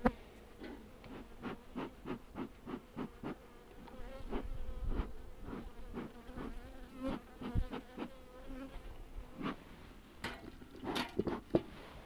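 Honeybees buzzing around an opened hive, a steady hum, with frequent short clicks and knocks as the hive frames are handled.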